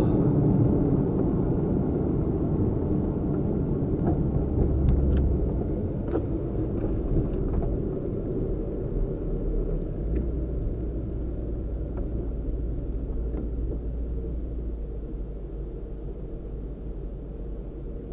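Car running: a low rumble of engine and road noise that gradually gets quieter through the second half, with a few faint clicks.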